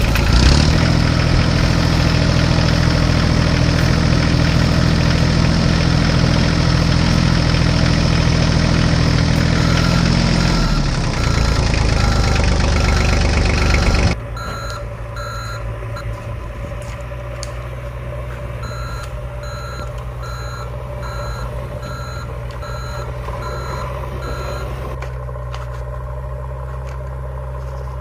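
Heavy engine running with a steady low drone, dropping to a quieter idle about halfway through; over the idle, a backhoe's reversing alarm beeps in repeated runs.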